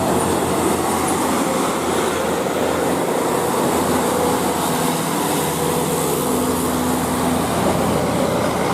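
Large bus running close by: a steady, loud rumble of diesel engine and road noise.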